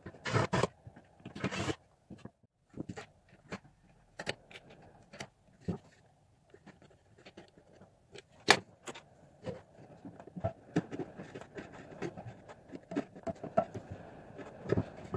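Handling noises on a workbench: scattered light clicks and knocks, with two short scrapes in the first two seconds and a sharper knock about eight and a half seconds in.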